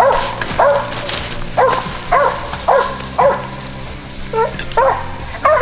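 Squirrel dog barking treed: a run of loud, sharp barks, roughly two a second with short gaps, the sign that the dog has a squirrel up a tree.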